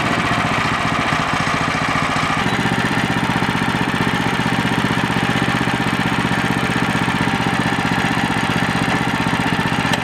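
Gasoline engine of a Woodland Mills portable bandsaw mill running steadily. About two and a half seconds in, a higher whine above the engine note falls away and the engine carries on running.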